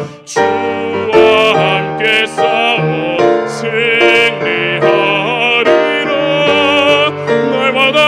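A baritone singing a Korean gospel song with strong vibrato over instrumental accompaniment, after a short breath at the start.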